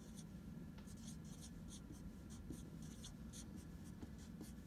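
Dry-erase marker scratching and squeaking across a white board as words are written, a quick faint run of short strokes.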